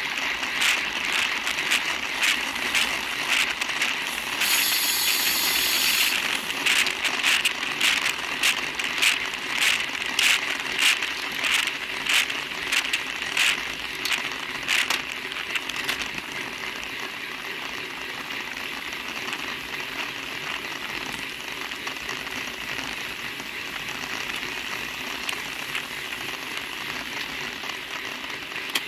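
Racing bicycle ridden at speed, heard through its rear-facing Cycliq camera: a steady rush of wind and tyre noise with a regular clicking rattle through the first half, and a brief hiss about four seconds in. A little past halfway the clicking stops and the rush goes on steadier and quieter.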